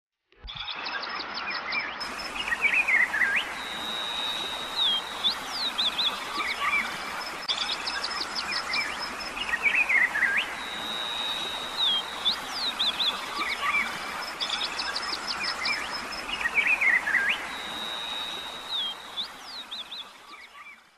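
Forest ambience: several birds calling over a steady hiss, with rapid chirps, a held whistle and quick falling notes. The same sequence of calls repeats about every seven seconds, as in a looped recording.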